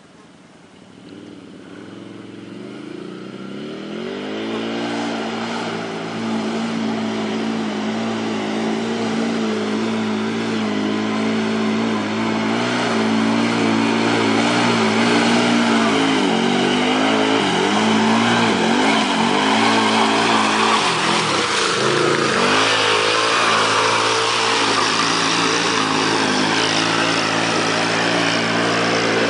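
Can-Am ATV's V-twin engine growing louder as the quad approaches through mud, then revving up and down as the tires churn through a deep mud hole, with mud and water splashing.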